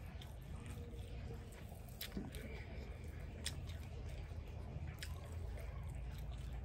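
Eating by hand: chewing and mouth sounds with a few sharp clicks, about two, three and a half and five seconds in, while fingers squish and mix rice. A low steady hum underneath.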